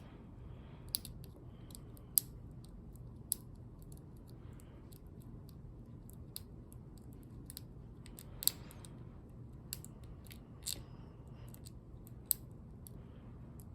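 Lock pick and tension wrench working in a padlock's keyway: scattered, irregular sharp metallic clicks with faint scraping as the pins are worked without the lock opening.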